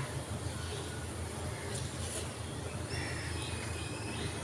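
Faint steady hiss of beef frying in masala in a clay pot over a low steady hum, with a few short high bird chirps about three seconds in.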